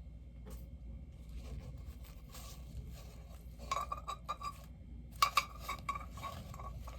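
Light ceramic clinks of a porcelain bobblehead being handled: two quick clusters of taps, about four and five seconds in, each with a short ringing tone.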